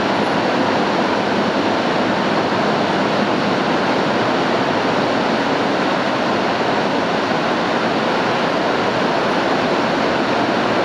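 Heavy tropical rainstorm falling on a tin roof, heard from inside the house as a loud, steady, dense hiss of rain.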